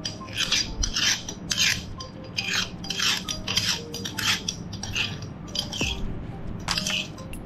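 Hand-cranked metal meat grinder being turned as it forces jelly through its cutting plate: a metallic rasping and scraping in quick, uneven strokes, two or three a second.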